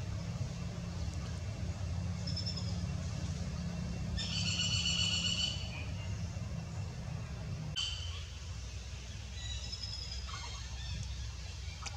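High-pitched animal calls, each clear with several pitches stacked. A short call comes about two seconds in, a louder one lasts about a second and a half from about four seconds in, and a few short chirps come near the end. Under them runs a steady low rumble, which eases a little after about eight seconds.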